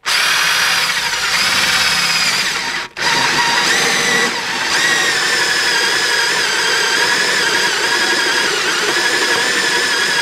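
Handheld electric drill driving a hole saw on a homemade arbor, cutting through aluminum diamond plate: a steady motor whine with a wavering high whine from the teeth biting the metal. It stops briefly about three seconds in, then cuts again.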